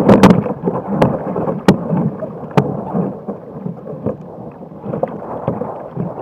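Choppy sea water sloshing and splashing around a plastic sit-on-top kayak (a Jackson Cuda 14) as a man in a drysuit hauls himself aboard from the water, with a handful of sharp knocks and thumps on the hull in the first three seconds, the loudest right at the start.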